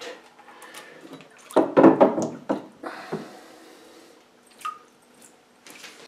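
Plastic electronics box and its screw-on round connector being handled over a kitchen sink: a run of knocks and clatter about one and a half to three seconds in, with scattered clicks and drips of water.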